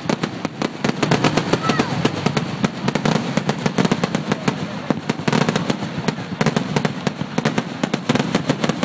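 Fireworks going off in rapid succession, a dense, continuous run of sharp bangs and crackles, many each second.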